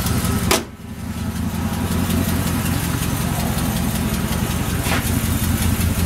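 2003 Chevy Silverado 2500HD's 6.0-litre V8 idling steadily. The hood slams shut about half a second in and the engine sounds quieter after it. A fainter click near the end is the door latch opening. The owner thinks there is a small exhaust leak.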